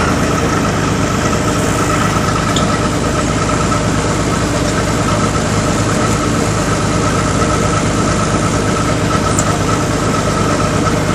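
Micro excavator's small diesel engine running steadily as the machine digs and swings, with a steady high whine over the engine note.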